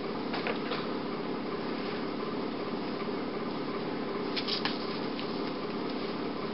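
Steady indoor background noise, an even hiss and hum like a fan or air conditioning running, with a few faint soft clicks about half a second in and again a little past four seconds.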